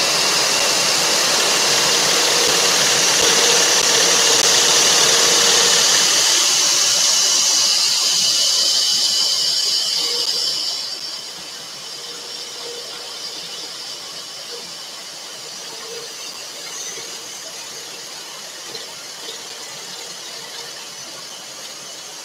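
Scroll saw running, its blade cutting through a thin wooden panel with a steady high hiss. About eleven seconds in the sound drops to a much quieter, steady run.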